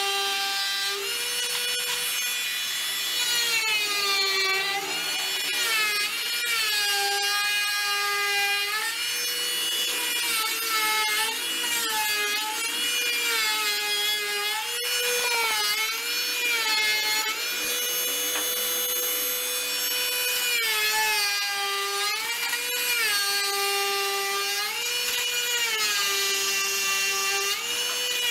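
Corded Dremel oscillating multi-tool cutting into a round log jammed in a bandsaw blade. Its high whine steps down in pitch and back up again every second or two as the blade bites into the wood and eases off.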